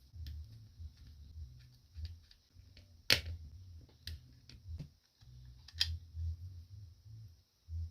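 Handling noise from a small Bluetooth speaker being taken apart: low bumps and rubbing, with a few sharp clicks of parts or tools. The loudest click comes about three seconds in and another near six seconds.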